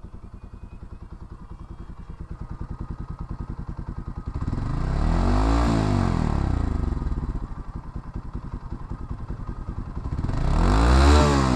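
Bajaj Pulsar NS200's single-cylinder engine with a modified exhaust silencer, heard close at the pipe: idling with an even beat, then revved twice, about four seconds in and again near the end, each rev rising and falling in pitch.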